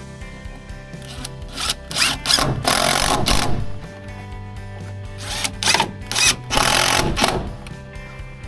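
A power drill run in two spells of about two seconds each, over background music.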